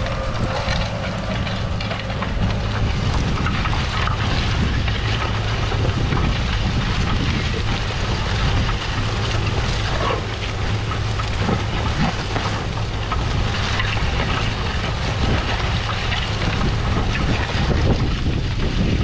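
Claas Arion 650's 6.8-litre six-cylinder diesel pulling steadily under ploughing load, with a constant rushing and crackling of soil turning over the Lemken five-furrow reversible plough's bodies.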